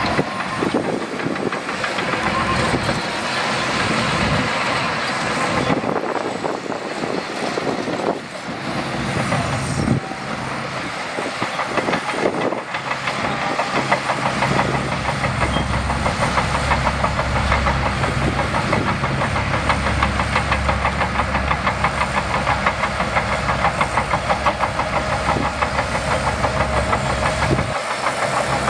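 Shantui DH17C2 bulldozer working, its diesel engine running steadily under load. About halfway through it grows louder, with a deep hum and a fast, even throb.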